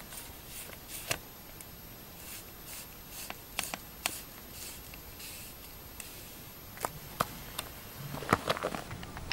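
Scattered light clicks and short rustles of an air rifle and its clip-on night-vision scope being handled, with a denser run of clicks near the end. A faint, thin, high whine runs under it and stops shortly before the end.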